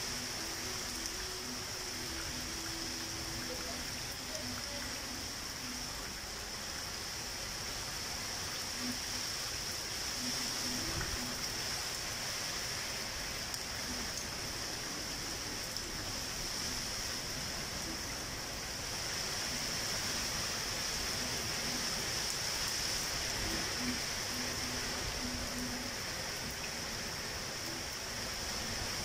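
Steady rain falling during a thunderstorm, heard as a continuous even hiss with no thunderclaps.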